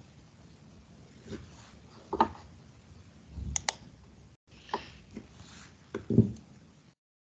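Scattered clicks, knocks and light handling noise picked up by an open microphone on a video call, with a sharp double click about three and a half seconds in and a couple of duller knocks. The call audio drops out for a moment midway and cuts off shortly before the end.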